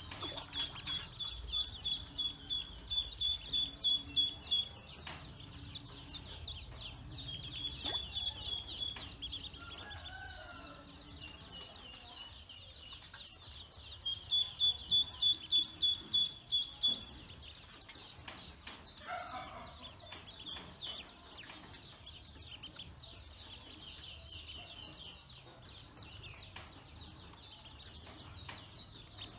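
Pekin ducklings peeping: runs of short, high-pitched peeps, several a second, coming in bursts of a few seconds with pauses between, and a couple of lower, sliding calls in between.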